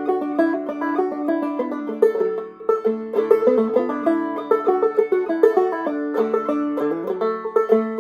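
Five-string banjo played clawhammer style: a quick, steady run of plucked, ringing notes in an old-time fiddle tune.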